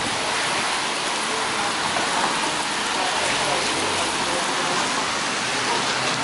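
Steady rain falling and splashing on wet pavement, an even hiss.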